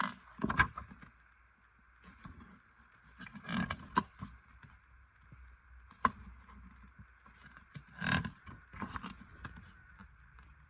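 A CD and its packaging being handled: a series of sharp plastic clicks and taps with short bursts of rustling and scraping, a few seconds apart.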